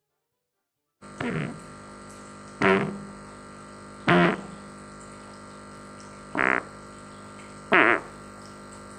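A person breaking wind in five short bursts, one to two seconds apart, each a brief pitched rasp. They sit over a steady hum that begins about a second in, after dead silence.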